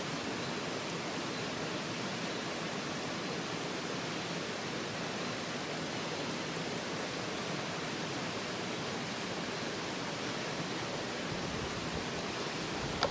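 Stream water running, a steady, even rush.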